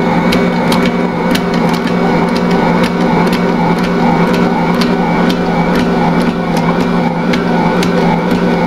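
Ankarsrum Assistent Original stand mixer running at medium-fast speed, kneading a heavy bread dough with its roller and scraper. The motor hums steadily, with frequent light ticks throughout.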